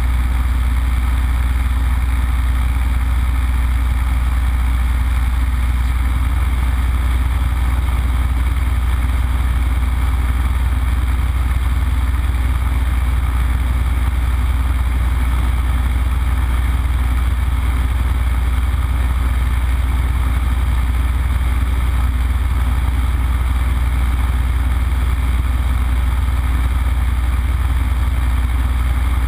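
Yak-52's nine-cylinder M-14P radial engine and propeller running steadily in flight, heard from inside the closed cockpit: a constant deep drone with a hiss over it and no change in power.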